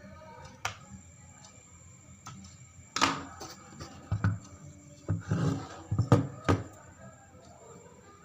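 A series of sharp clicks and knocks with some dull thuds, bunched together in the middle, as of hard parts being handled and set down.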